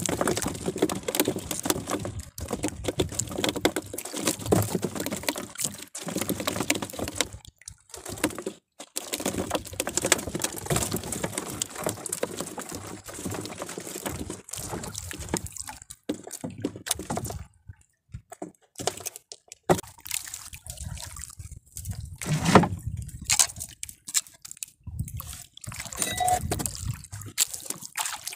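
Water splashing and dripping as a wet fishing handline is hauled in hand over hand, in irregular bursts with a few short pauses.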